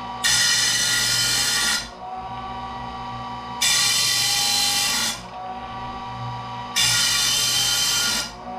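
Electric circular saw blade sharpener's grinding wheel running, pressed against a saw tooth three times for about a second and a half each with a loud, hissing grind, then backed off to a steadier motor hum between teeth. The saw blade's teeth are being sharpened one at a time.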